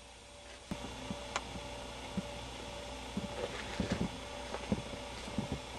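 Magazine pages being handled and turned, a few soft rustles and clicks, over a steady electrical hum in the room tone.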